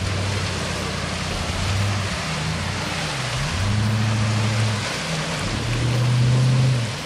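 Land Rover Discovery engine revving up and down several times as it pushes through a deep muddy water hole, with water splashing and churning around it.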